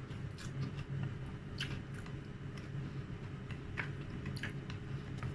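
Close-miked chewing of fried dried milkfish and rice, with irregular wet mouth smacks and small clicks, over a steady low hum.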